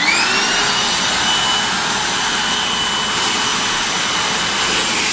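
Vacuum cleaner switched on, its motor whine rising in pitch as it spins up over the first half second, then running steadily.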